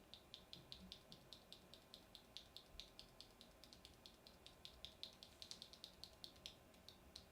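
Faint, quick clicks of a loose Akko Rosewood mechanical keyboard switch being pressed and released by hand, several a second without a break.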